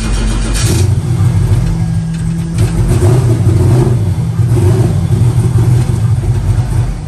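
Starter motor cranking the turbocharged 427 LSX V8 with a rapid, uneven churning; the engine turns over but does not fire. Battery voltage is low.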